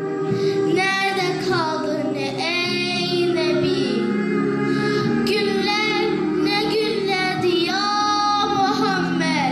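A girl singing a slow melody into a microphone, with long held notes, over sustained backing chords.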